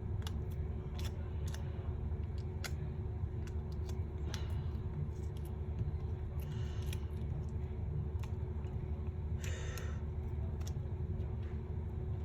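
Scattered light clicks and taps, with a few brief scrapes, from small tools and parts being handled while a smartphone is reassembled, over a steady low hum.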